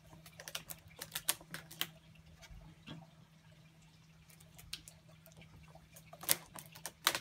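Rubber bands being stretched by hand and let go onto a watermelon's rind, making a run of light clicks and snaps. The two loudest snaps come near the end, over a steady low hum.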